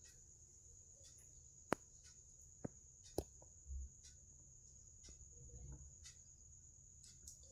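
Near silence with a faint, steady high-pitched tone behind it. A few sharp clicks fall about two to three seconds in, followed by a short low thump.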